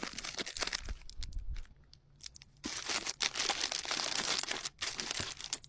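Plastic packaging crinkling and crackling as small items are handled, in scattered crackles at first and then a long continuous stretch of crinkling in the second half.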